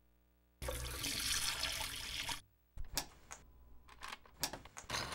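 Liquid pouring and splashing into a stainless-steel sink drain for about two seconds, stopping abruptly. Then several sharp clicks of a blender's push-buttons being pressed.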